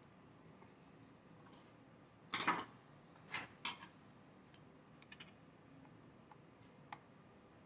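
Clicks and a short clatter of small chainsaw parts being handled and fitted by hand: one brief rattle a little over two seconds in, then a few single sharp clicks spread over the next few seconds.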